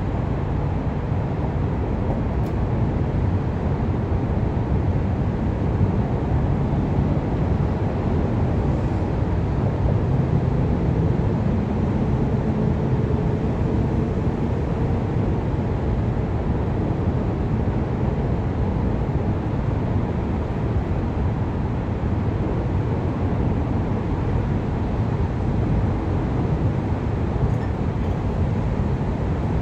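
Steady low outdoor rumble with no distinct knocks or clinks standing out.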